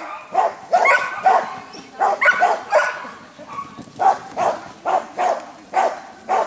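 A dog barking repeatedly, about two barks a second, in quick runs of two or three with short pauses between them.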